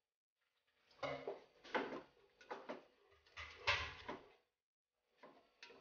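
Cooking spoon stirring a thick masala in a pot, scraping and knocking against the pot in a run of strokes from about a second in until past four seconds, with a couple of faint strokes near the end.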